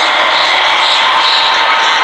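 Loud, dense steady noise with no clear tone or rhythm, strongest in the middle and upper range.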